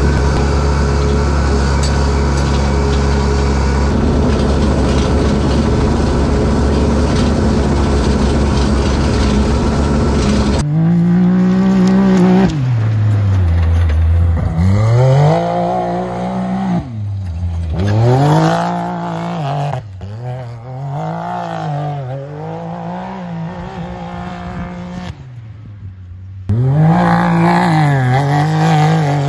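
A steady, loud engine drone for about the first ten seconds, then an off-road vehicle's engine revving up and easing off again and again, about every one to two seconds, as it is driven around dirt-track corners.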